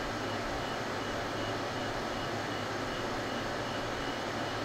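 Steady machine noise: an even hiss with a low hum underneath, unchanging throughout.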